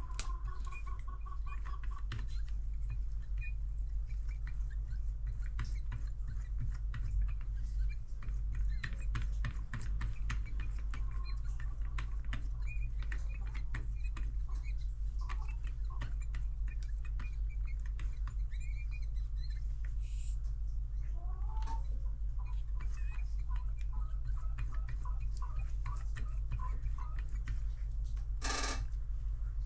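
Small clicks, rustles and short squeaks of a paper towel being rubbed over the parts inside an opened cordless jigsaw's housing, over a steady low hum, with a short rustle near the end.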